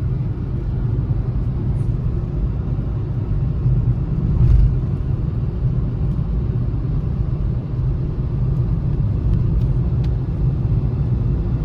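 Steady low rumble of a vehicle driving on a road, with engine and road noise. There is a heavier thump about four and a half seconds in.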